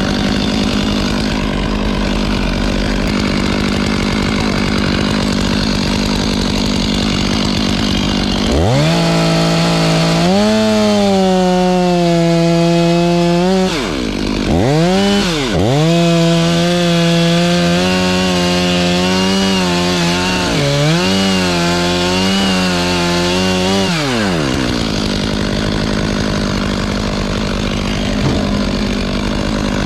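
Two-stroke chainsaw running steadily, then opened up to full throttle in two long bursts, one at about 9 to 14 seconds and one at about 15 to 24 seconds. During the bursts the engine note wavers and sags as under cutting load. It then drops back to a steadier running sound.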